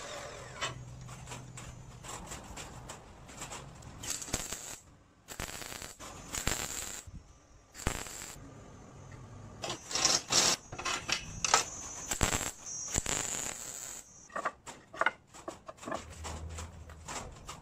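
Workshop sounds: a run of sharp clicks, scrapes and knocks, with a few louder crackling bursts in the middle, as metal and wooden parts are worked and handled on a bench.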